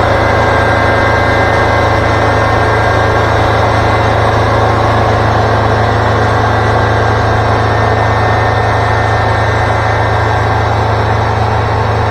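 Wood-Mizer LT40 Super Hydraulic sawmill's engine running steadily, with a constant low hum.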